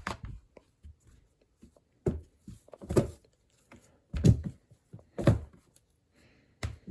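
A handful of short, soft thumps and rustles spaced about a second apart: stuffed animals being handled and dropped into a bucket.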